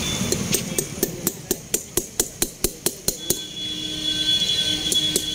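Rapid, sharp metal tapping, about four or five strikes a second, as a metal spike is driven into a coconut by hand. The taps stop for about a second and a half after the middle, while a steady high tone sounds, then start again near the end.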